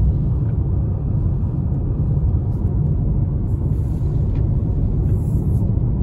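Steady low rumble of a car driving at road speed on a wet highway, heard from inside the cabin.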